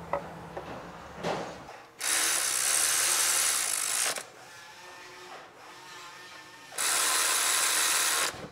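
Power ratchet on a long extension running the oil filter housing bolts down on a Honda Odyssey's V6 block, tightening the housing onto its new gasket: a few light clicks as the socket is set, then two steady runs, the first about two seconds long and the second about a second and a half.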